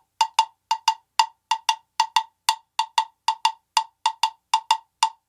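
A tone block, the slotted wooden percussion block, struck with a beater in a steady rhythm. It gives about four sharp, pitched wooden knocks a second, each with a brief ring.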